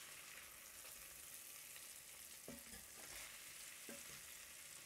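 Meatballs and onion frying in a pan over a low flame: a faint, steady sizzle.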